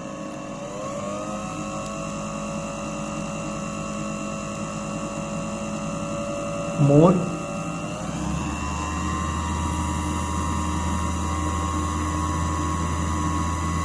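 220 V universal sewing machine motor running free with a steady whine that steps up in pitch as its speed is turned up: once about half a second in, and again about eight seconds in, when a low hum joins it.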